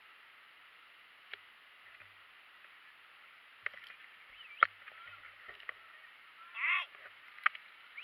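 Handling noise of an action camera in its case: several sharp clicks and knocks over a thin, muffled background, with a short wavering cry about two-thirds of the way through.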